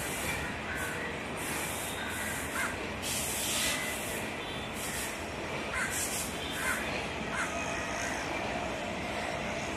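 Crows cawing several times, scattered short calls, over a steady low rumble from a distant diesel-electric locomotive.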